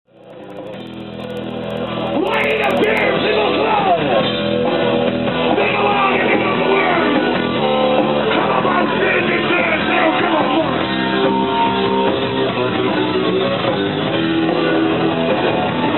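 Punk rock band playing live with electric guitar, heard from the crowd. The music fades in over the first two seconds, then runs at full level.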